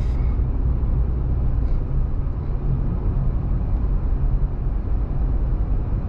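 Steady low rumble of a car's road and engine noise heard inside the cabin, as the car coasts with the engine under light load to let the overheated transmission fluid cool after a steep climb.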